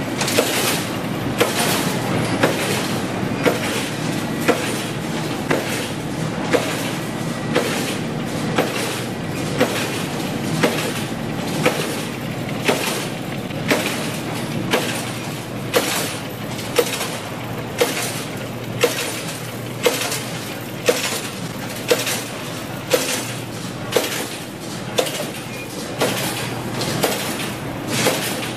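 Wire-processing machines running with a steady mechanical din and a sharp metallic clank every second or so, the regular stroke of a machine working through wire.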